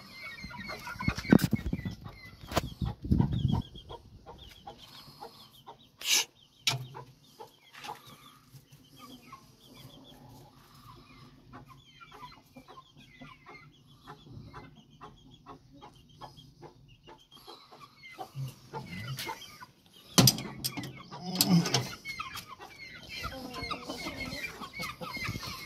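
Chickens clucking, with loud bumps and knocks in the first few seconds and again about twenty seconds in.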